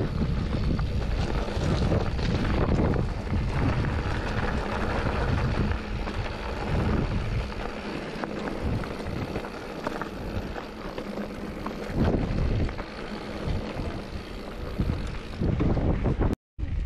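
Wind buffeting the microphone over the crunch and rattle of mountain bike tyres rolling on loose gravel and rock, with scattered knocks. It is loudest in the first few seconds, eases through the middle, picks up again, and cuts out for a moment near the end.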